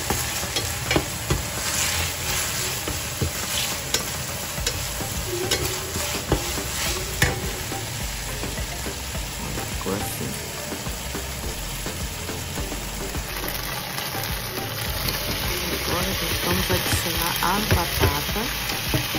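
Sliced onions frying in margarine in a nonstick pan, sizzling steadily while a plastic spatula scrapes and taps as they are stirred. From about two-thirds of the way in, diced par-boiled potatoes are frying on top of the onions.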